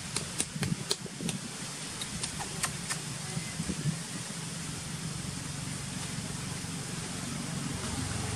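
Steady low engine hum of road traffic over a hiss of background noise, with a quick run of sharp clicks and crackles in the first three seconds.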